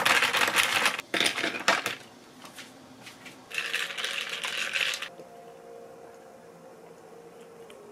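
Ice cubes clinking and rattling against a glass as a glass straw stirs a fizzy kiwi drink, for about the first two seconds. A short hiss follows about three and a half seconds in, then only faint room hum.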